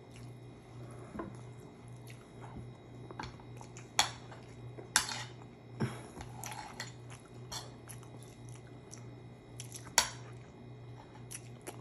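Close-up eating sounds: chewing, with small clicks and several sharp clacks of dishes, the loudest about four and ten seconds in, over a steady low hum.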